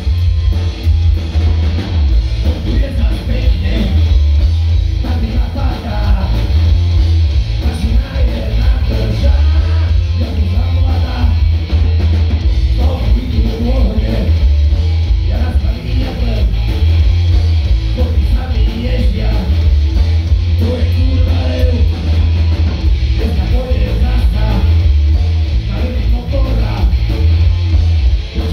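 Live rock band playing loud and bass-heavy: a male vocalist singing over electric guitar, bass guitar and drums.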